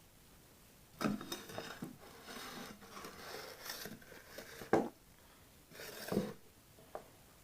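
Bitter kola nut being peeled: scratchy scraping and crackling of the skin coming off for a few seconds, with a couple of sharp clicks.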